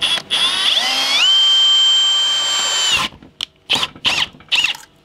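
Power drill boring into a plastic junction box: the motor whines up in pitch, runs steadily for about two seconds and stops about three seconds in. A few short scrapes and clicks follow.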